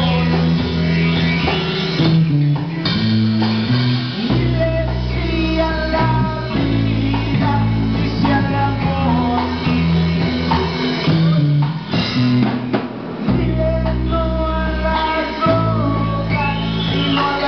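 Live rock band playing: electric guitar, bass guitar and drum kit with a man singing, the bass notes changing every second or two and the low end dropping out briefly about two-thirds of the way through.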